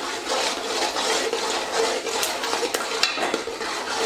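Raw peanuts frying in hot oil in a metal kadai while a spatula stirs them: a steady sizzle mixed with the scraping and small clicks of the spatula against the pan.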